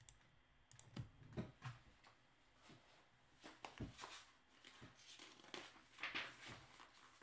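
Faint, irregular clicking and tapping of a computer keyboard and mouse.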